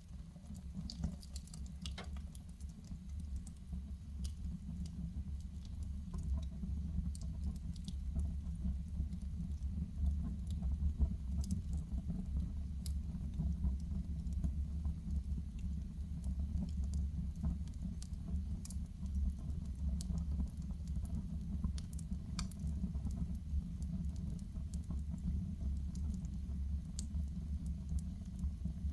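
Wood fire burning in a fireplace: a steady low rumble with scattered, irregular sharp crackles and pops.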